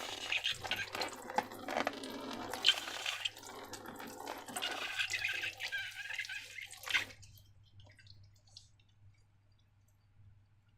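Wet, sticky slime being worked by hand, squelching and crackling in quick irregular pops. It stops about seven seconds in.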